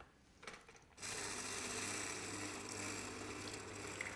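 Electric motor of a Sage citrus press humming steadily as its lever arm presses an orange half onto the spinning reamer cone. It starts about a second in, after a couple of light clicks.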